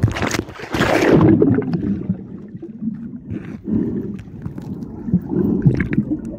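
Muffled water sloshing and gurgling around a microphone held underwater, with a louder splashing rush about a second in.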